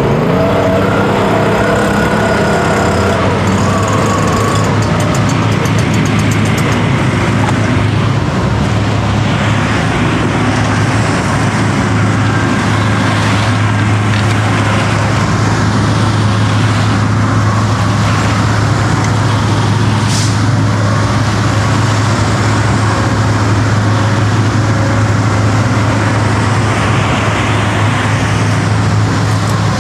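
Heavy engine running steadily at a constant speed, a continuous low hum with machinery noise over it.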